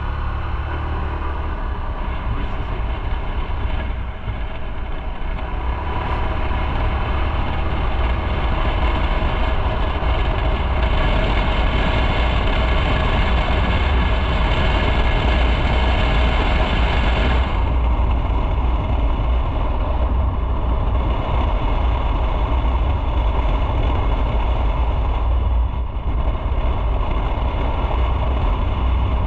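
Motorcycle running on the road, its engine under steady wind and road noise on the bike-mounted microphone. The hiss in the upper range drops off suddenly a little past halfway.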